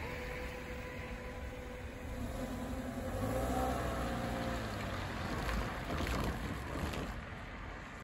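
Car driving over a railway level crossing on a wet road: tyres hissing on the wet surface and the engine note rising and falling as it passes. A few light knocks come near the end as the wheels cross the rails.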